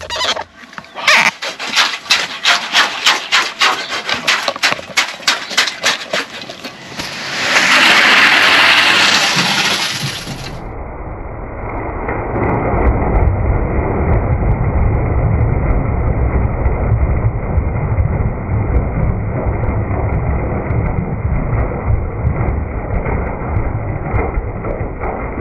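Wet concrete tipped from a wheelbarrow into a footing trench, heard slowed down as a low, muffled rumble from about ten seconds in. Before it, a fast run of sharp knocks, about four a second, then a loud hiss lasting about three seconds.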